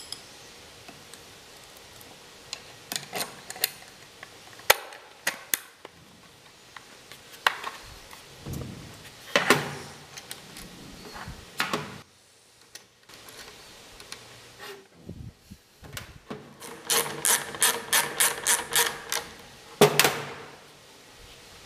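Small metal hardware being handled: scattered clicks, clinks and short scrapes as an aluminium strap clamp and its bolt and nut are fitted around a plastic coolant overflow bottle. Near the end comes a quick run of ticks, about five a second, then one louder knock.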